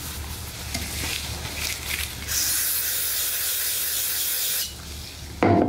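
Old head-gasket material being scraped and rubbed off a metal engine gasket mating surface. About two seconds in, a steady hiss starts and runs for about two seconds before cutting off.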